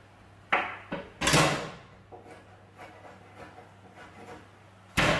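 Kitchen knife chopping mushrooms on a wooden cutting board: a few sharp knocks of the blade on the board in the first second and a half and again near the end, with light quiet cuts between.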